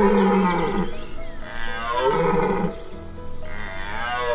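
A deer calling three times, each call about a second long, with a low voice whose pitch bends and slides, over soft background music.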